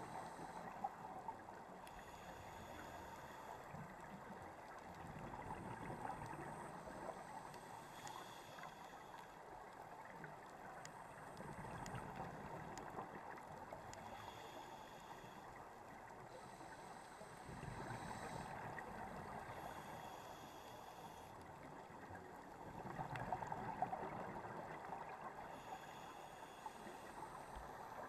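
Scuba diver breathing through a regulator underwater: a short hiss on each inhale, then a longer bubbling rush as the exhaled air escapes, repeating about every six seconds.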